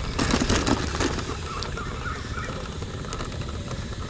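Wind rumbling on the microphone of a moving bicycle, with a few clicks about a second in and short chirping calls of evening insects or frogs.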